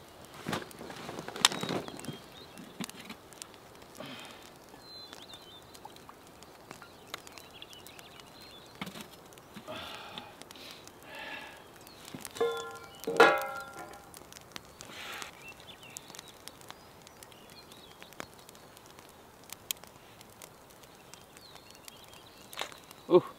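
Outdoor camp ambience: scattered knocks and clicks, faint high bird chirps, and one short pitched call or hum about halfway through.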